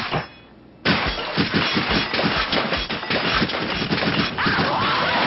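A single sharp bang, then about a second later a dense, rapid clatter of bangs and crashes that keeps on, with music coming in near the end.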